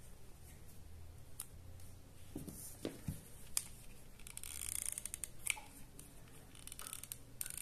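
Faint handling sounds of EVA foam craft pieces and a hot glue gun on a tabletop: scattered light clicks and taps, with a soft scraping rustle about four to five and a half seconds in.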